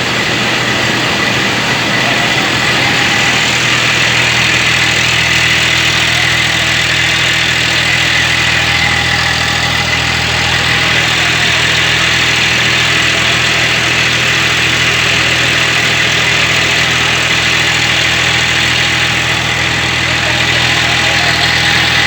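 Tractor-driven mini rice mill running steadily: the tractor's engine at a constant speed together with the steady noise of the mill machinery.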